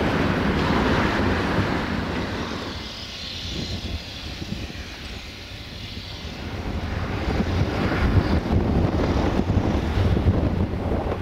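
Wind buffeting the microphone outdoors, a rushing rumble that dips in the middle and swells again.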